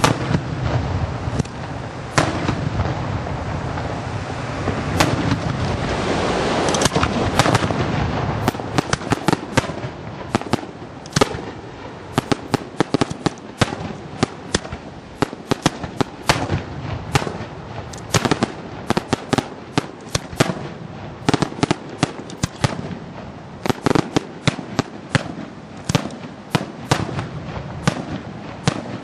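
Daytime aerial fireworks: a few single sharp bangs over a steady rushing noise at first, then from about eight seconds in a dense, irregular crackle of sharp reports, several a second.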